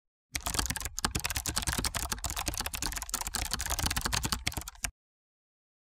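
Rapid computer-keyboard typing clicks, a typing sound effect, that start just after the beginning and cut off suddenly after about four and a half seconds.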